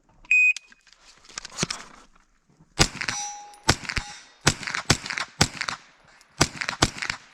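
Shot timer beeps once to start the stage, then a long gun fires a string of about nine shots, spaced from a fraction of a second to about a second apart. A steel target rings after one of the early hits.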